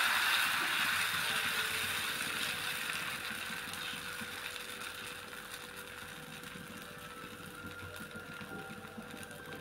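Dosa batter sizzling on a hot tawa, the hiss fading steadily as the ladle spreads it outward in circles, with a soft scrape of the ladle on the pan.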